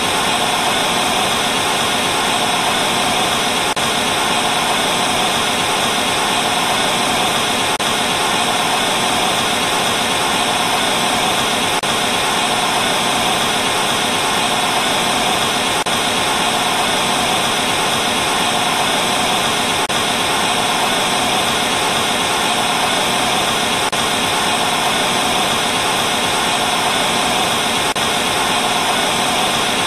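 Steady TV static: the even hiss of a television with no signal, unchanging throughout.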